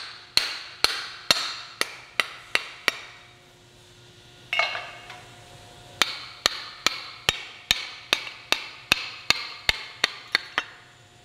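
Sharp hammer blows on the axe head, driving the handle back out of the eye. They come quick and even, about three a second, each with a short metallic ring. After a pause comes a single clank with a longer ring, then another run of blows.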